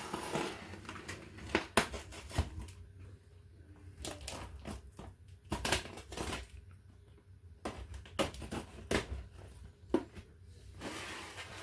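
A parcel's packaging being handled, with crinkling and scattered knocks and taps throughout.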